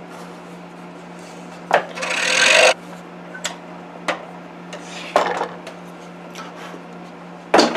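Scroll saw running with a steady hum, its blade rasping through wood loudest about two seconds in, with several short clicks.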